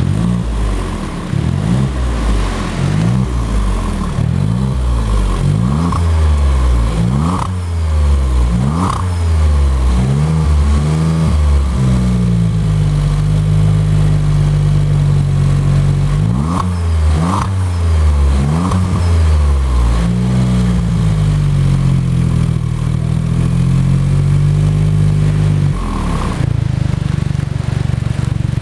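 Smart fortwo Brabus three-cylinder turbo engine breathing through a handmade sport muffler and metal catalyst, free-revving while stationary: quick repeated blips of the throttle, held twice at raised revs, then settling back to idle near the end.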